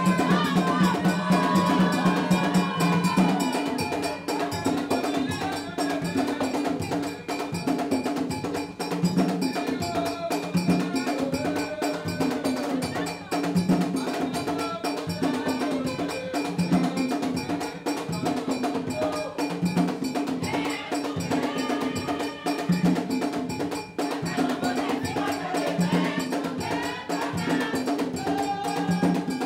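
Haitian vodou ceremonial music: a group of voices singing over drums and quick, steady, ringing percussion strokes.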